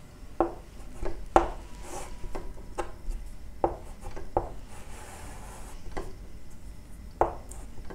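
Chalk tapping and scraping on a chalkboard as a cutting plane line is drawn in short dashes: about ten sharp, unevenly spaced taps with light rubbing between them.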